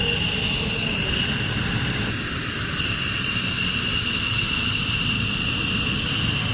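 F-15 jet engines running, a steady high-pitched turbine whine over a low rumble.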